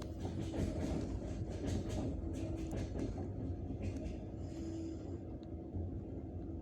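Passenger train running, heard from inside the carriage: a steady low rumble with a run of wheel knocks over rail joints in the first few seconds, and a held tone of the 'singing rails' above the rumble.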